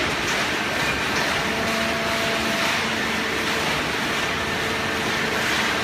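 Hydraulic baling press running, its motor and pump making a steady mechanical noise with a faint hum.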